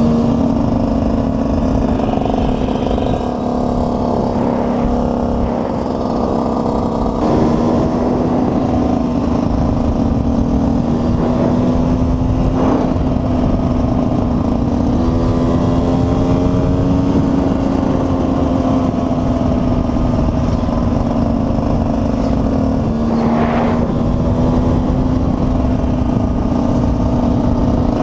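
KTM 125 EXC single-cylinder two-stroke motorcycle engine running under way at a steady, nearly constant pitch, with small rises and dips in revs.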